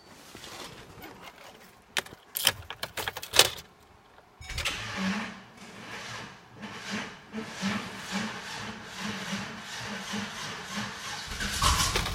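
Clicks and knocks, then a Chevrolet Silverado 5.3L V8 cranking slowly on its starter, about two or three turns a second, for several seconds before it catches and runs near the end. The slow crank comes from a jump pack that is nearly dead.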